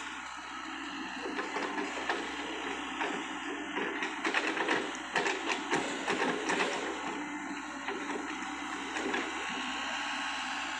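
Sany SY55C mini excavator's diesel engine running steadily while its bucket digs and scrapes through wet soil in a ditch, with a run of clicks, knocks and scraping in the middle.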